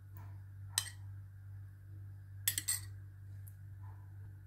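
A metal spoon clinking against a dish as whipped cream is spooned out: one clink about a second in and a quick pair a little past the middle, over a steady low hum.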